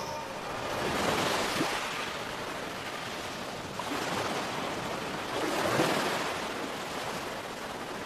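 Sea waves surging and washing ashore, a steady rush of surf that swells and fades in three slow surges.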